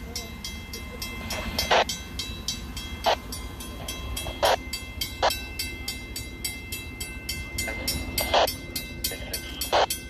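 Fire engine on the move: steady low engine and road rumble, with a fast even ticking and a sharper clack about every second and a half.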